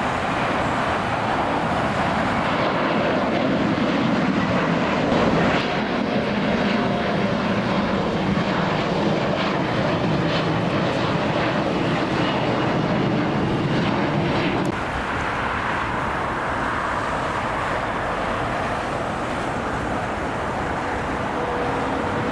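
Jet airliner's engines rumbling as it passes, loudest about five seconds in and dropping off fairly suddenly about fifteen seconds in.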